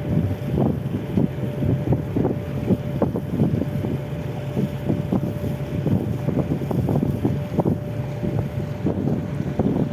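An engine running steadily with a faint constant hum, under heavy wind buffeting the microphone.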